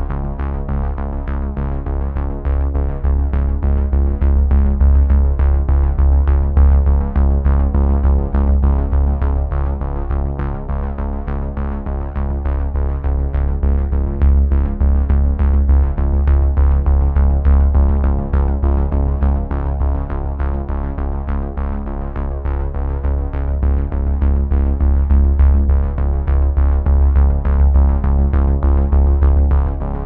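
Electronic background music: sustained synthesizer chords over a heavy bass and a steady beat.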